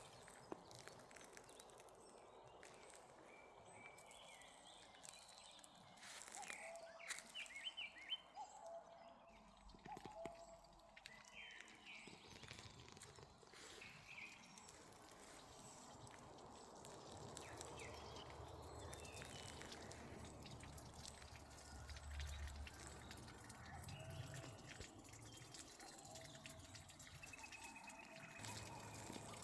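Faint outdoor country ambience with scattered short bird chirps, most of them clustered in the first half.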